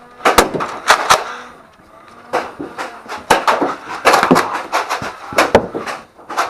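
About a dozen sharp, irregular clacks and knocks, typical of foam-dart blasters being primed and fired and darts striking during a Nerf battle.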